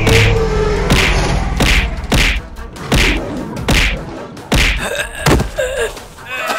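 A run of heavy thuds and whacks, a little more than one a second: impact sound effects from an animated animal fight. A short falling tone is heard at the start.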